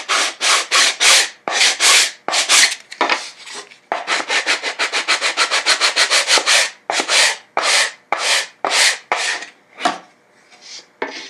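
Sanding block rubbed back and forth along the edge of an MDF jig part: rasping strokes about three a second, quickening to roughly six a second in the middle, then a few slower strokes that stop shortly before the end.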